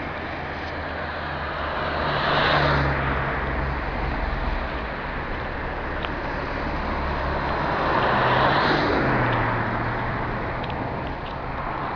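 Steady road and engine noise of a moving car, with two vehicles passing, loudest about two and a half seconds in and again about eight and a half seconds in.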